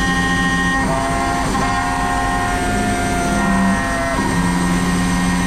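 Background music of held synthesizer-like notes over a steady low note, the chord changing every second or so.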